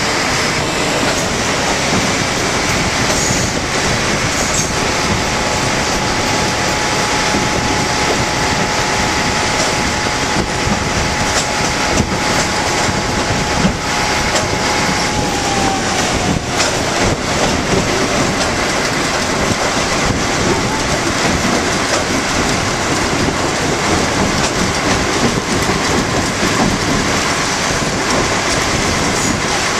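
Excursion train rolling along jointed sectional rail, heard from aboard: a steady running rumble with the clickety-clack of the wheels over the rail joints. A thin steady whine runs through the middle, then slides down in pitch and stops about halfway.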